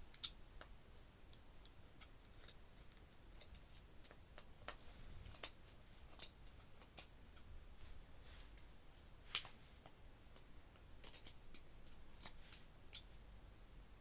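Faint, irregular sharp clicks and snips of scissors cutting tangled hair off a Dyson DC03 vacuum's brush roll, with a louder click just after the start and another about nine seconds in.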